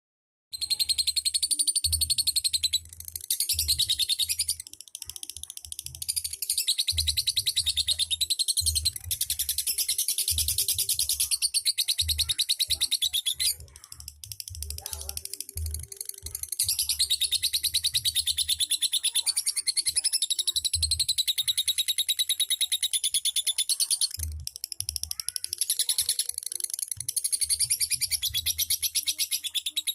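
Lovebird's long, rapid chattering trill (the "ngekek" song), a dense stream of high chirps sustained for many seconds at a time with short breaks, over irregular low thumps.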